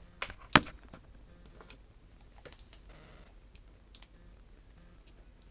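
Handling noise: a few sharp clicks and taps, the loudest about half a second in and another near four seconds in, with faint fumbling between them.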